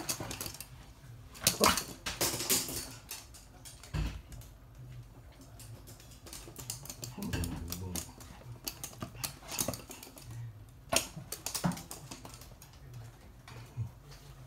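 Small dog's claws clicking on a hard laminate floor as it walks and scrambles about, in irregular runs of sharp clicks that come thickest about two seconds in and again near eleven seconds. There is one dull thump about four seconds in.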